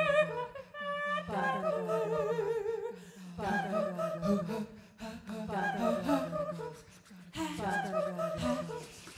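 Female voice singing wordless, electronically processed vocal phrases, some with vibrato, over a steady low drone; a similar falling vocal figure recurs about every two seconds, as from digital looping.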